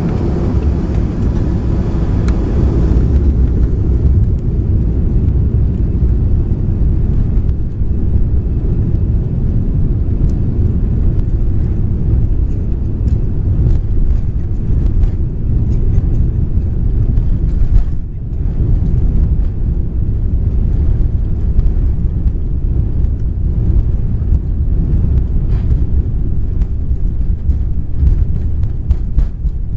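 An Airbus A340-300's takeoff roll heard from inside the cabin: its four CFM56 engines at takeoff power with a deep, steady rumble from the wheels on the runway. The rumble grows louder about three seconds in and then holds steady.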